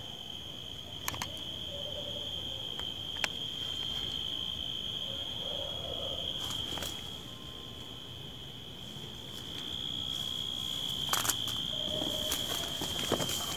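Crickets chirping at night in one steady high trill, with a few sharp clicks scattered through it.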